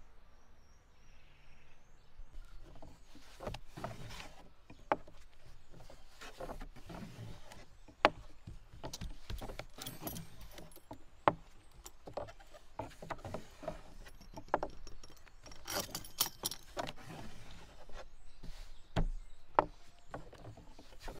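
Hands and a fluted pastry wheel working dough on a wooden board, close up: rustling and scraping, with sharp clicks and taps, a few of them loud, as the wheel trims a folded half-moon of dough and the trimmed dough is lifted.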